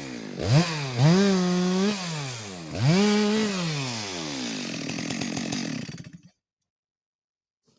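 Two-stroke chainsaw engine revved up in three surges, dropping back between them, then falling to idle and cutting off suddenly about six seconds in.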